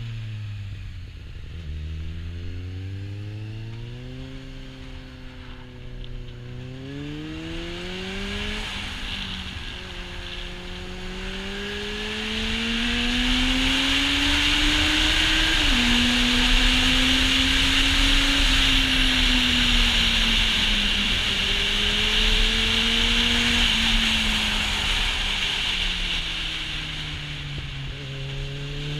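Kawasaki Z800e's inline-four engine with an Akrapovic exhaust, riding a mountain pass road: the revs drop at first, then climb through the gears with a dip at each shift, hold fairly steady in the middle and drop again near the end. Heavy wind noise on the microphone rises with speed in the middle stretch.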